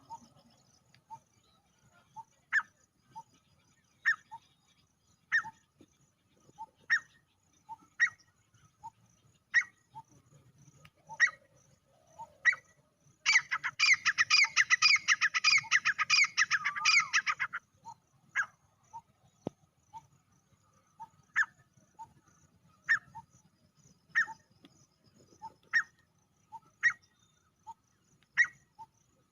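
Male grey francolin calling: short, sharp notes repeated about every second and a half, broken midway by a loud burst of rapid calls lasting about four seconds.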